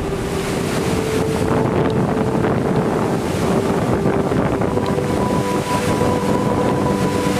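Waterfall in flood: a steady, loud rush of heavy brown water plunging onto rock, with wind noise on the microphone.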